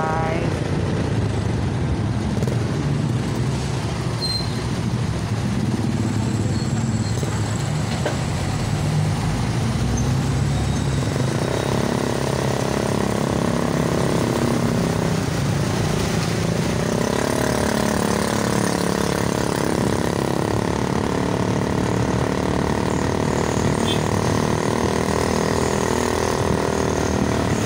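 Steady driving noise from a moving vehicle in town traffic, engine and road noise together. From about twelve seconds in, a steady hum of several pitches joins it.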